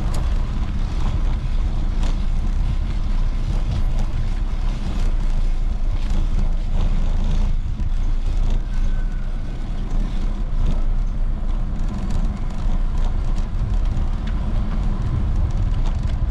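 Wind buffeting the microphone of a camera on a moving bicycle: a loud, steady low rumble.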